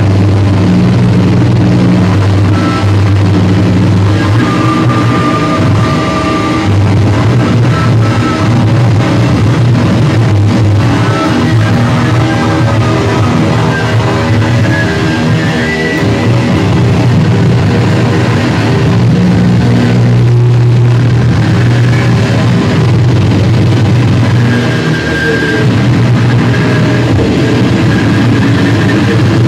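Loud live rock music with heavily amplified electric guitar, played as a dense, continuous wall of sound with long held low notes.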